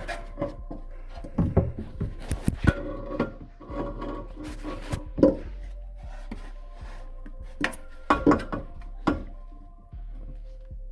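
Irregular metal knocks and clanks of an exhaust pipe being handled and slid into place under a car, with a few sharp louder knocks.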